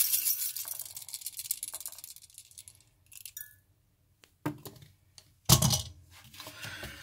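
Loose No. 8 birdshot pellets rattling and clinking against a ceramic mug as they are stirred and spread with a small tool. The clinking thins out after about two seconds, and a couple of louder knocks come near the end.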